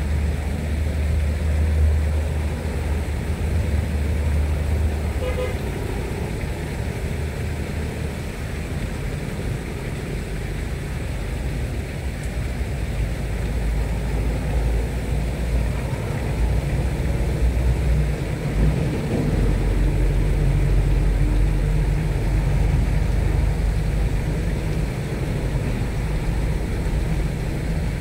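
Engine of a moving vehicle running steadily with a low rumble, the rumble strengthening and easing now and then; a short toot about five seconds in.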